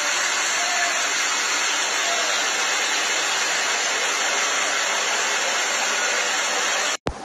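Fast-flowing floodwater rushing through a street: a loud, steady, even rush of water that cuts off abruptly near the end.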